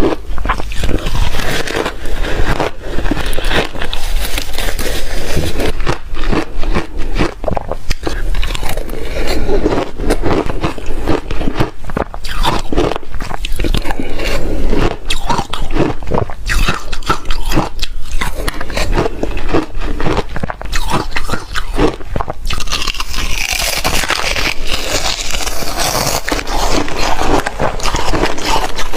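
Person biting and chewing shaved refrigerator ice close to the microphone: a continuous run of crisp crunches with a gritty scraping texture.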